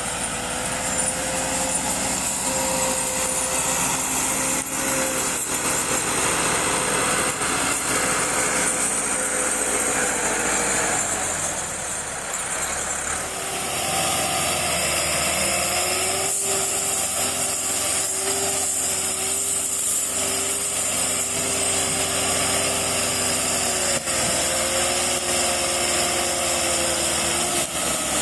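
Massey Ferguson 385 tractors' four-cylinder diesel engines running hard under load, pulling a fully loaded sugarcane trolley that is stuck. The engine note wavers a little and drops in pitch about halfway through.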